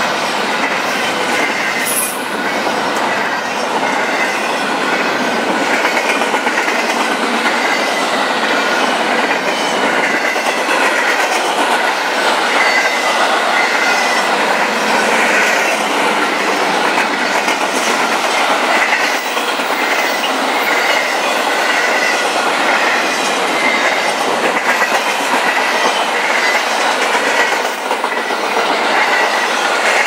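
A BNSF freight train's cars roll steadily past close by, their wheels clattering over the rail joints with a thin, high-pitched wheel squeal running through the noise.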